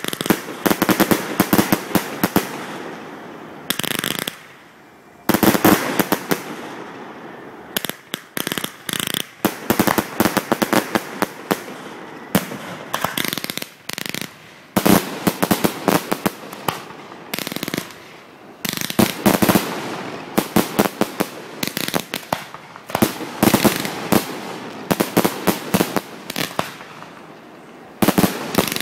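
Aerial fireworks going off in rapid volleys of sharp bangs and crackling bursts, one after another, with a short lull about four seconds in.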